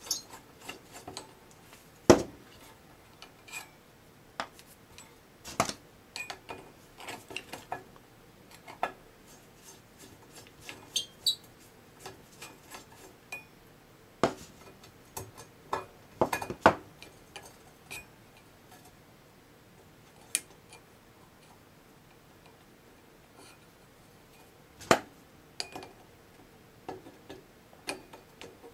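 Irregular metallic clicks, clinks and knocks from an old rotary twist switch and its metal housing being handled and worked loose, with its wires shifting. A few sharper knocks stand out, the loudest about two seconds in.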